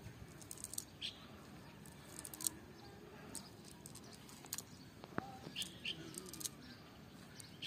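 A cast net being handled on grass: soft rustling and scattered light clicks as it is gathered by hand, with a few short bird chirps in the background.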